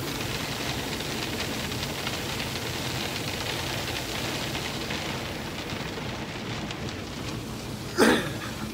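Water spray and brushes of an automatic car wash washing over a truck, heard from inside the cab: a steady rushing spray noise whose upper hiss thins out about halfway through. A short, louder sound comes near the end.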